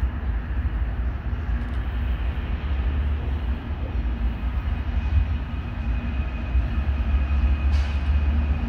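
BNSF diesel-electric freight locomotives approaching, their engines giving a steady low rumble. A faint thin whine joins about halfway through.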